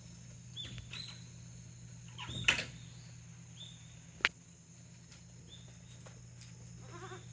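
Goats moving about in a wooden goat house: a few sharp knocks and clacks, the loudest about two and a half seconds in and a sharp click about four seconds in, among short high chirps, over a steady low hum.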